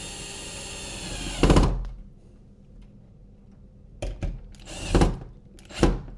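Cordless drill driving a doorknob's mounting screw: the motor runs steadily and stops about a second and a half in with a loud jolt, then three short loud bursts as the screw is snugged down.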